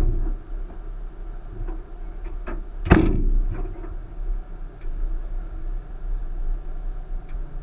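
A 1999 Subaru Forester's flat-four engine running low and steady, heard from inside the cabin, broken by two sharp clunks: one right at the start and a louder one about three seconds in, with a few lighter knocks between.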